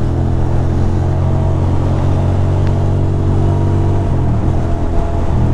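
2006 Ducati Monster 620's air-cooled L-twin engine running steadily at highway speed, with wind noise. About four seconds in the engine note dips briefly, then picks back up.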